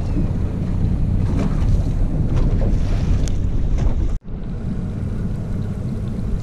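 Wind rumbling on the microphone aboard a boat at sea, with water noise behind it. The sound cuts out for an instant about four seconds in.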